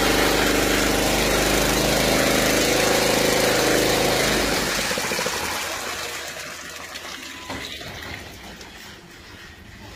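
Engine-driven water pump running while a hose nozzle sprays a jet of water into a plastic tank, a steady engine note under the splashing. Both fade away after about four and a half seconds.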